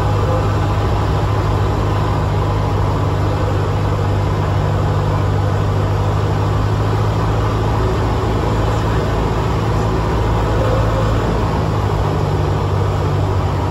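Steady drone of a single-engine light aircraft's piston engine and propeller heard from inside the cabin: an even low hum with air noise over it.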